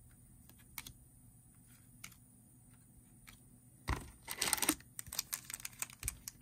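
A few light clicks of trading cards being set down on a glass counter, then about four seconds in a thump against the cardboard box and a dense crinkling rustle as a wrapped card pack is pulled out of it.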